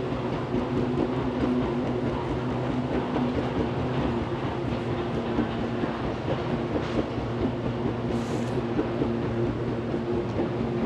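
Airport moving walkway running: a steady mechanical hum and rumble from its drive and moving belt.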